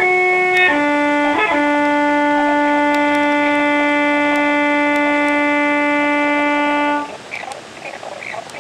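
Instrumental background music: one steady-toned instrument plays a slow line of a few short notes, then holds one long note for about five seconds. The note stops about seven seconds in and leaves a quieter stretch.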